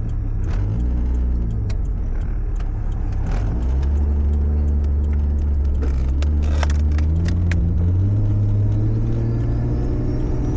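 Toyota Supra engine heard from inside the cabin while driving, a steady low drone that steps in pitch a few times as the revs change, with several sharp clicks about two-thirds of the way through. The engine is running on freshly fitted ignition coils and is running noticeably better on them.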